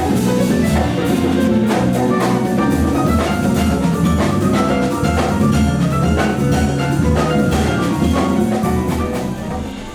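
A jazz ensemble playing, with a drum kit and percussion keeping a steady beat under pitched instruments.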